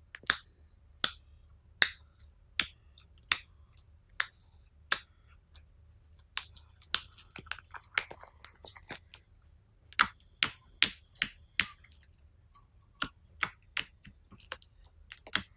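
Clear foaming slime being poked with the fingertips, giving sharp wet smacking pops, one or two a second at first and closer together in the second half.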